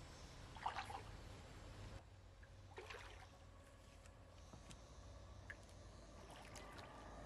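Near silence outdoors, broken by a couple of brief soft sounds about a second in and again near three seconds.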